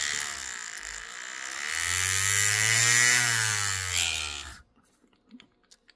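Green Stuff World cordless handheld paint shaker running empty with its large adapter fitted. Its motor whine rises in pitch and loudness, then falls and stops about four and a half seconds in. The vibration that can be heard with no bottle in it is taken as part of how the mixer is built to work.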